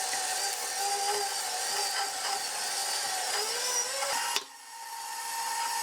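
Electric mixer running, beating an egg into creamed butter and sugar, with a steady motor whine. About four seconds in it drops to a quieter, steadier hum.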